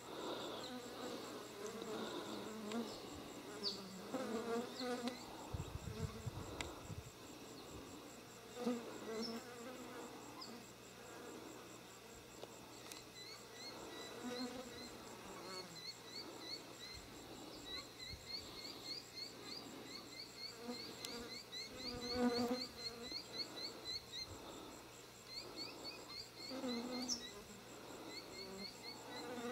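Insects buzzing close by, coming and going in waves. Through the second half there are runs of quick, high, rising chirps.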